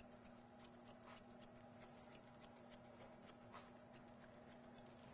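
Thinning shears snipping quickly through a Shih Tzu's long hair behind the ear: a faint run of crisp clicks, several a second.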